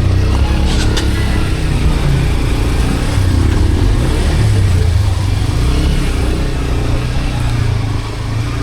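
Motorcycle taxi engine running while under way, with a constant low rumble of wind on the microphone.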